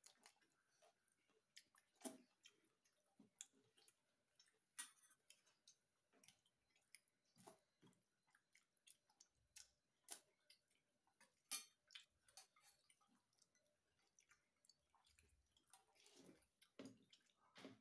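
Faint close-up eating sounds: irregular soft clicks and smacks of chewing roti with matar paneer, with a few sharper, louder clicks scattered through.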